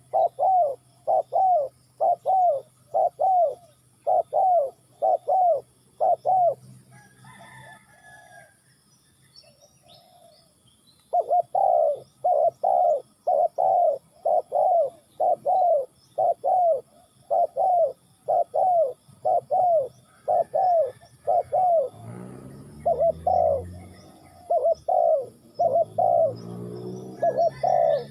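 A dove cooing in a long run of short, evenly repeated notes, about two a second. The run breaks off for a few seconds about a quarter of the way in, leaving faint chirps of small birds, then starts again. In the last few seconds a deeper sound joins underneath the calls.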